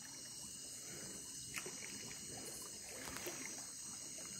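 Faint night ambience: a steady high chorus of crickets and other insects, with light water trickling and dripping and one small click about a second and a half in.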